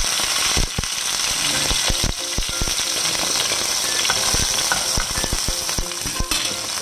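Salmon steaks sizzling in olive oil in a nonstick frying pan over a moderate flame, a steady hiss with scattered crackles. A slotted spatula scrapes and taps against the pan as the pieces are moved.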